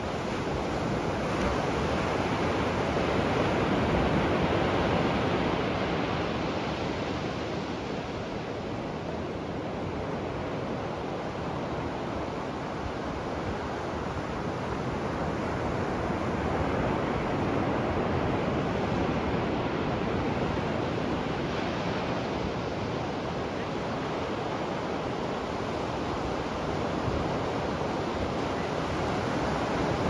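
Ocean surf breaking and washing up on a sandy beach: a continuous wash of waves that swells louder a few seconds in and again a little past the middle.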